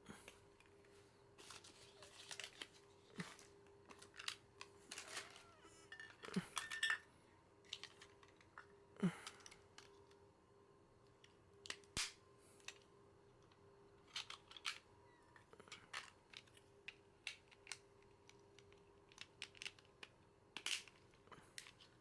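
Small plastic capsule-toy parts being handled and clicked together: scattered clicks, snaps and rustles of a toy Progrise Key being assembled, over a faint steady hum.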